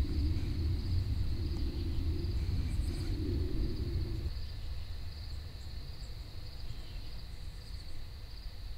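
Steady high-pitched insect chorus of crickets over a low outdoor rumble; the rumble is heavier for the first four seconds, then eases.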